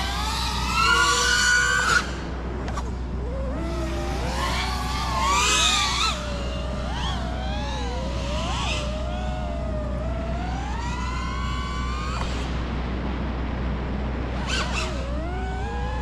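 A 5-inch FPV freestyle quadcopter, a Quadmula Siren F5 on T-Motor Pacer V3 2207 motors, whining as it flies, the motor pitch rising and falling with the throttle. Two louder punch-outs come in the first few seconds, the first cutting off sharply about two seconds in.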